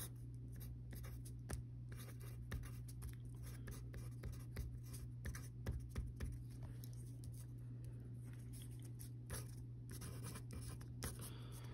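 Pen writing on a sheet of paper: faint, irregular scratching strokes, over a steady low hum.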